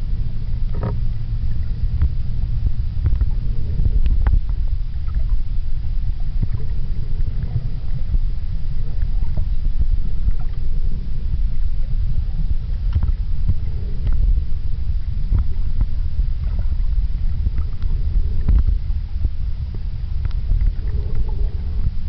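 Underwater ambience: a steady low water rumble against the camera, with scattered faint clicks and ticks.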